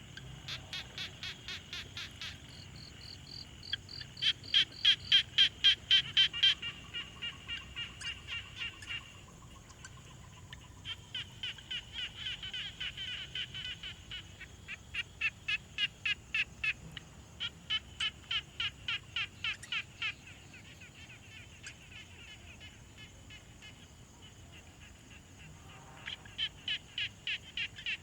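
A chorus of frogs calling in repeated bouts of short, sharp pulses at about five a second. Several callers overlap and trade off, and the loudest, closest series comes a few seconds in. A thin steady high tone runs beneath.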